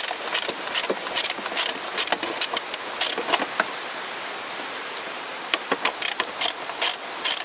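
Socket ratchet clicking in short irregular runs as it is worked back and forth on a small bolt. It pauses for about two seconds midway, over a steady background hiss.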